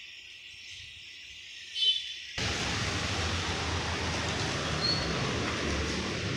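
Outdoor street ambience: at first quiet, with a faint high-pitched hum and one short chirp just before two seconds in. About two and a half seconds in, a sudden steady rushing noise, much louder and spread from deep to high, takes over and holds.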